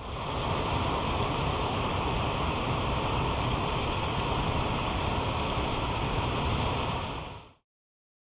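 Steady rush of flowing water, a mountain creek or waterfall, which cuts off suddenly near the end.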